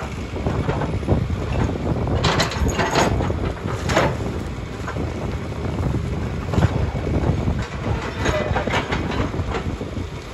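Komatsu PC290LC hydraulic excavator's diesel engine running under load as its bucket and thumb work a brush and log pile, with repeated sharp cracks and knocks of branches and wood, clustered about two to four seconds in and again near the end.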